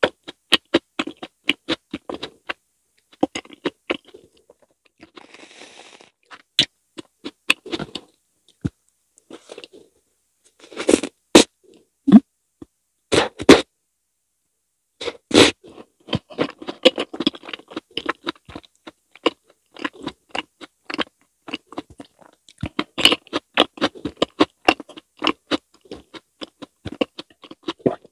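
Close-miked chewing of soft, sticky mochi rice cakes filled with red bean paste, fruit and whipped cream: wet smacking and sticky mouth clicks coming in irregular clusters, with a short pause midway.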